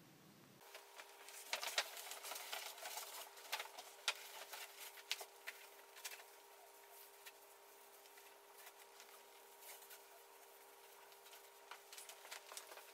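Handmade paper and ribbon handled as a folded paper book is tied up: quiet, crisp rustles and light taps, busiest for the first few seconds, thinning out, then picking up again near the end, over a faint steady hum.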